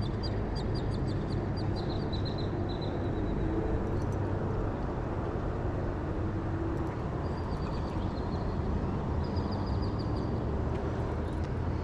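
A bird calling in three quick runs of short, rapid high notes, about four or five a second, over a steady rushing background.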